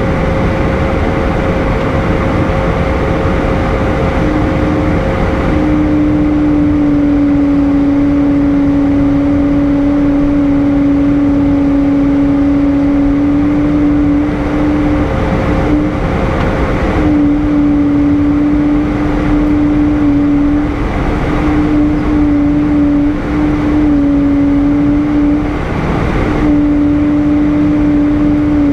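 Airbus A320 passenger cabin in flight: a steady rush of jet engine and airflow noise. A steady hum joins about four to five seconds in, wavering slightly and dropping out briefly a few times.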